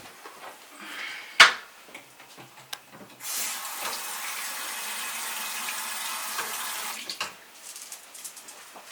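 A sharp knock, then a bathroom sink tap running steadily for about four seconds before it is turned off, with a couple of light knocks after it.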